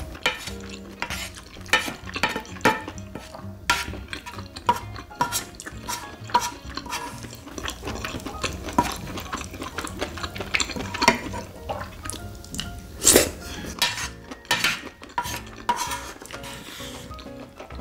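Wooden spoon scraping and knocking against a large dark-coated pan, gathering up the last sauce-coated rice in irregular short scrapes.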